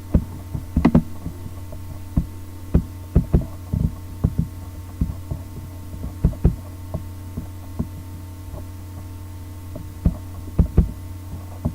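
Steady electrical mains hum under irregular sharp clicks of a computer mouse and keyboard, sparser in the middle.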